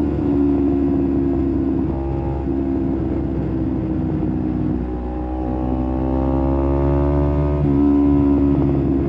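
Kawasaki Z250 parallel-twin engine running through an aftermarket SeaPro muffler while riding. The engine note holds steady, dips about two seconds in, then the revs climb from about halfway and fall sharply near the end.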